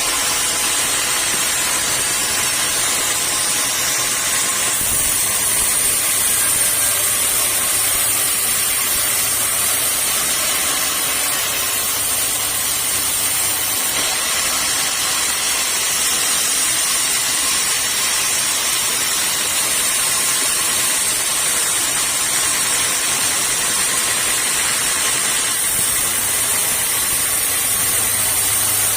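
Sawmill saw running and cutting acacia timber: a loud, steady hiss with a faint high whine.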